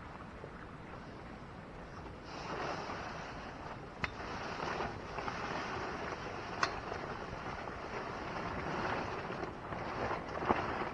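Nylon fabric of an Ozark Trail instant A-frame tent rustling and scraping as the pitched tent is moved, louder from about two seconds in, with a few sharp knocks from its frame.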